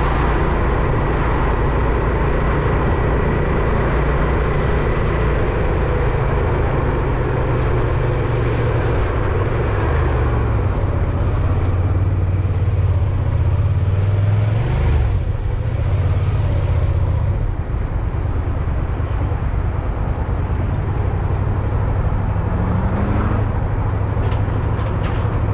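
Continuous low rumble of engine and wind while riding on the road, swelling a little around the middle, with a brief rising pitch near the end.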